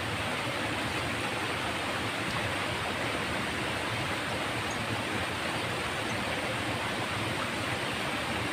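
Shallow stream water flowing steadily over a low concrete weir and around rocks, a constant, even rushing.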